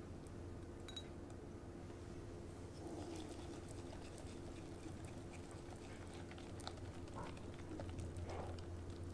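Wire balloon whisk mixing thick chocolate cake batter in a glass bowl: soft, wet swishing with light scattered clicks of the wires against the glass, starting about three seconds in. A steady low hum runs underneath.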